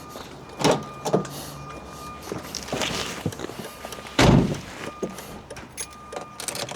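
Thumps and clicks of handling inside a BMW E46 about to drive off, the loudest thump about four seconds in, with a thin steady tone sounding on and off.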